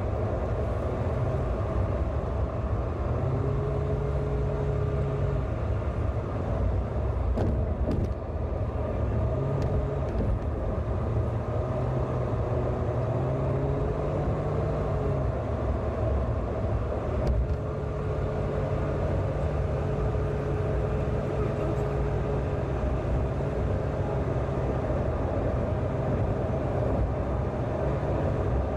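A car driving on the road: a steady rumble of engine and tyres, with a faint hum that comes and goes.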